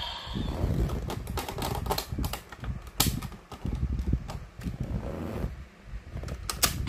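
Irregular plastic clicks and clacks from a DX Kamen Rider Geats toy transformation belt and its buckles being handled and worked, over low handling rumble.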